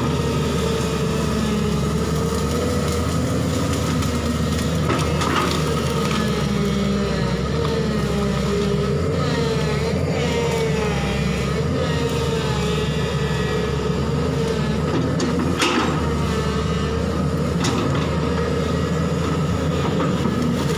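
JCB tracked excavator's diesel engine running steadily under load, with a whine that rises and falls in pitch as the boom and bucket work. A few sharp cracks cut through, about a quarter of the way in and twice near the end, as the bucket tears at branches and brush.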